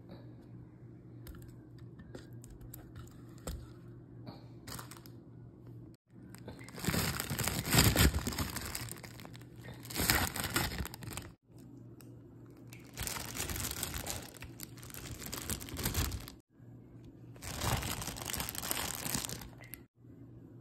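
Plastic bag crinkling and rustling as fruit is taken out of it and put into a hollowed-out watermelon, in three long bursts after a quieter start.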